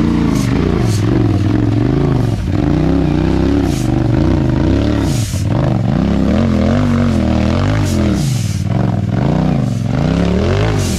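Side-by-side UTV engine revving up and down as the throttle is worked on and off, its pitch rising and falling repeatedly.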